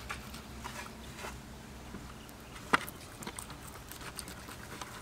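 Knife tip scoring the salt-crusted skin of raw pork belly on a metal baking tray: light scratching and small taps, with one sharp click a little past halfway.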